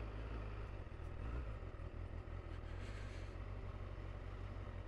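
Honda CBR1000RR Fireblade SP2's inline-four engine running steadily through its stock exhaust as the bike is ridden, heard as a quiet low rumble.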